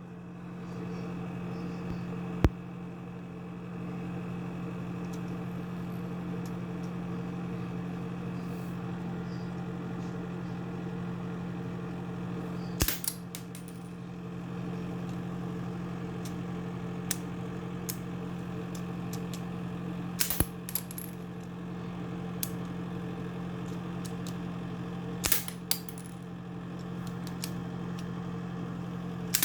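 Sharp plastic clicks and clacks from a Lego-brick toy revolver being worked, a handful of them several seconds apart, some in quick clusters, over a steady low hum.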